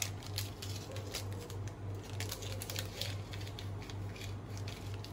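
Faint, irregular small clicks and rustles of fishing hooks and line being handled in the fingers, over a steady low hum that pulses evenly.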